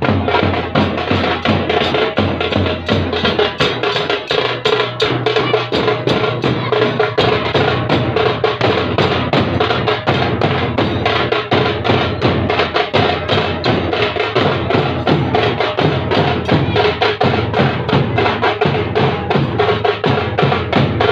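A band of large marching drums, slung on shoulder straps and beaten with sticks, playing a fast, even rhythm of dense strokes.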